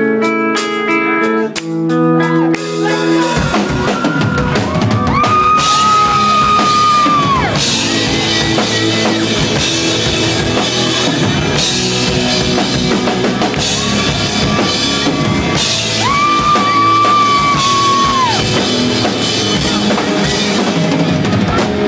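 Rock band playing live: a few picked electric guitar notes, then about three seconds in the drums and full band come in, with long held melody notes over a steady beat.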